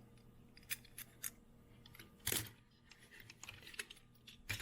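Faint scattered clicks and clinks of small die-cast metal toy cars being handled, picked up and set down. The loudest click comes about halfway through.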